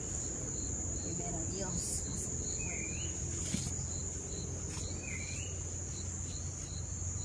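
Insects droning in a steady high-pitched trill, with a bird's short swooping call repeating about every two and a half seconds.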